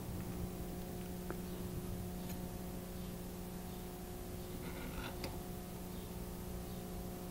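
Faint small clicks and a brief rustle from fine jewelry wire being wrapped by hand and gripped with small pliers, a few isolated ticks and a short cluster about five seconds in, over a steady electrical hum.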